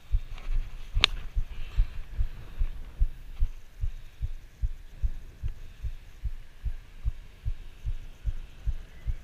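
Footsteps of someone walking on a dirt track, heard as dull, even thuds about two to three a second through a body-worn GoPro, with one sharp click about a second in.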